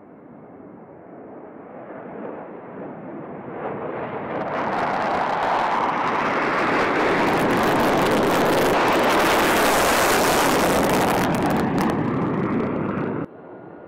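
Fighter jet taking off, twin-engine F-15 Eagle: the jet noise builds over about five seconds to a loud, steady blast, stays loud, then cuts off suddenly near the end.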